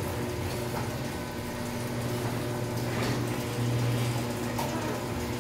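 Overhead Door model 100A garage door opener running as it raises the door: a steady motor hum with a few faint clicks from the drive.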